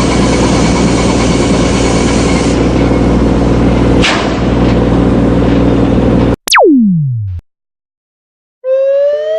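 A run of synthesized monster-film sound effects: a dense, steady rumbling noise with a low hum under it that cuts off suddenly about six seconds in, then a single falling glide sweeping from high to low, a short silence, and a rising glide over a steady tone near the end.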